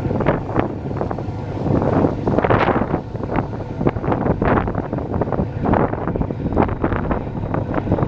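Wind buffeting the microphone on the deck of a moving passenger boat, in irregular gusts over a steady low rumble from the boat.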